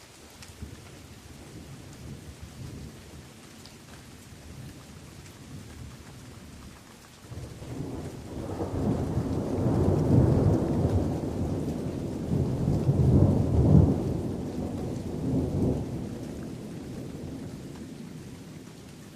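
Steady rain falling on forest leaves, with a long roll of thunder that builds about seven seconds in, swells to two peaks and slowly fades away.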